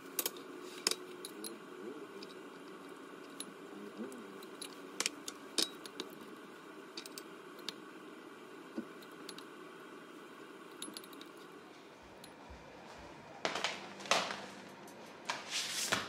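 Chopsticks and a serving spoon clinking and tapping against glass bowls as salad is served, in many short, light clicks over a steady low hum. Near the end come a few louder scraping, rustling sounds.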